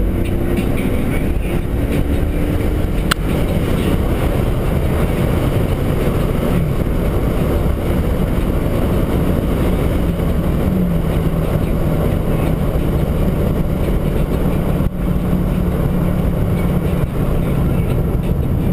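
Stock exhaust of a Jeep Grand Cherokee WJ's 4.7-litre High Output V8, heard from inside the cabin as the engine pulls hard near 4000 rpm. About eleven seconds in the pitch drops at an upshift, then the engine holds a steady drone at highway speed.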